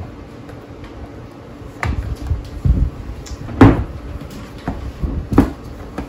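Plastic knocks and clicks from a Ford F-150 steering wheel being handled and set down on a countertop: a few sharp clacks, the loudest about halfway through and another near the end, with duller bumps in between.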